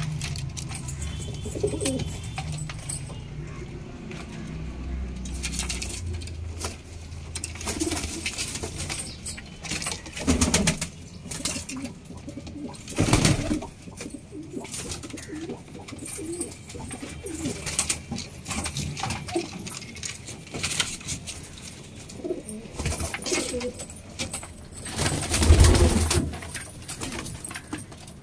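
Domestic pigeons cooing over and over in a loft, with a few brief louder rustles, the loudest near the end.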